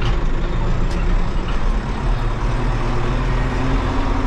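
2008 Zetor tractor's diesel engine running steadily.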